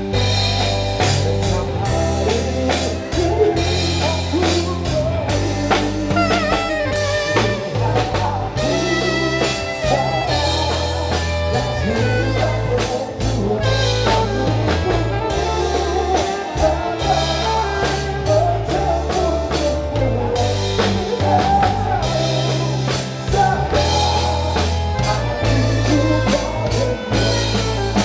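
Band music: drum kit, electric guitar and bass playing a steady groove, with a singing voice at times.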